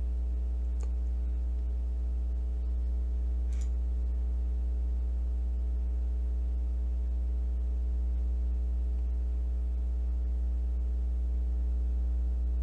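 Steady low electrical hum, like mains hum, with a stack of evenly spaced overtones. Two faint clicks come in the first few seconds.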